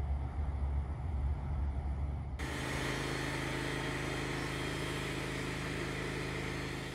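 A low rumble for about two seconds, then a Wood-Mizer LT15 band sawmill cuts in abruptly: its engine running steadily under the hiss of the band blade sawing through a squared timber.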